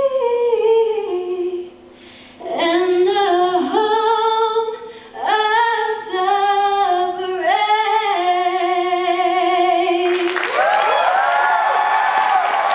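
A woman singing a national anthem solo and unaccompanied, ending on a long held note. About ten seconds in, the audience breaks into applause and cheers.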